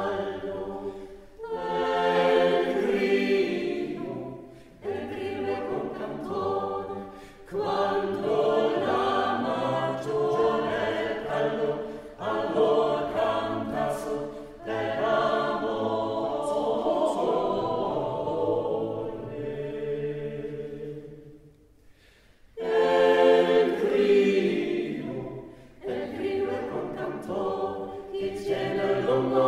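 A small mixed vocal ensemble singing a Renaissance frottola a cappella, in short phrases separated by brief breaks. The voices stop about 21 seconds in and come back in a second later.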